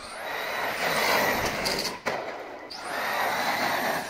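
Arrma Senton RC short-course truck with a Hobbywing Ezrun 3660 brushless motor driven hard on asphalt: two bursts of rising electric motor whine with tyre noise, a short dip between them about two seconds in.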